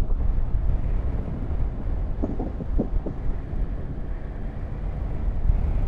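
Motorcycle riding along at speed: a steady low engine rumble under rushing wind noise on the microphone.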